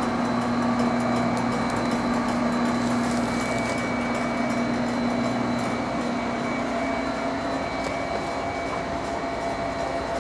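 Selmi chocolate enrober running: a steady mechanical hum with several constant tones from its motors, a little of the low part dropping away after about six seconds.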